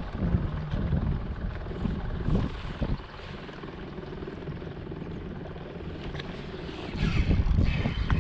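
Electric trolling motor on a kayak running with a steady low hum. Louder rough noise comes in near the end.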